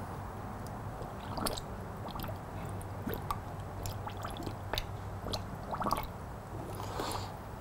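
Green antifreeze coolant gurgling through a funnel into a motorcycle's radiator filler neck, with scattered small pops and drips as air bubbles work up out of the cooling system while it fills.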